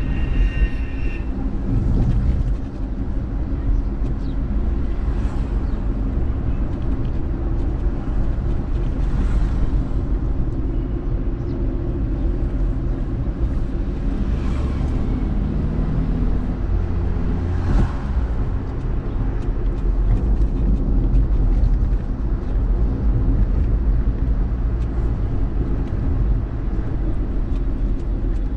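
Car driving on a city street, heard from inside the cabin: a steady low engine and road rumble. A brief high tone sounds in the first second, and a few faint swells of passing traffic come and go.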